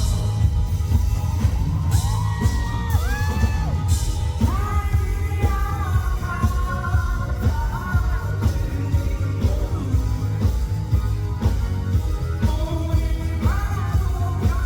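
Live pop-rock band music with a male singer over heavy bass and drums, as heard from the audience in a concert hall.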